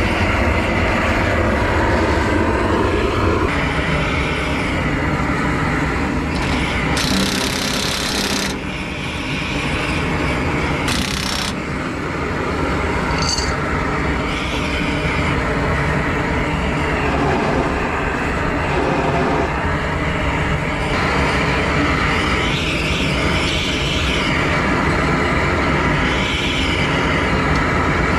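Torch heating a stubborn rear axle hub to break it free: a steady, loud roar with an even hum under it, and two short bursts of hiss about seven and eleven seconds in.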